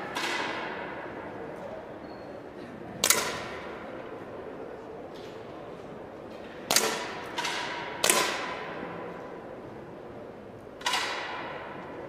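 10 m air pistols firing along the line: about six sharp pops at irregular intervals, two of them close together a little past the middle, each followed by a ringing echo in the hall.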